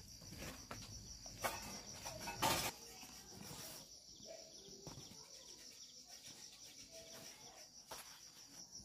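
Crickets chirring steadily in a faint, high, fast and even pulsing trill, with a few soft knocks and scuffs in the first three seconds.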